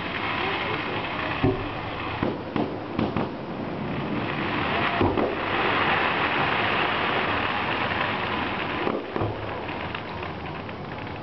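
Aerial fireworks going off: a dense crackling that swells to its loudest in the middle, with several sharp booms scattered through it.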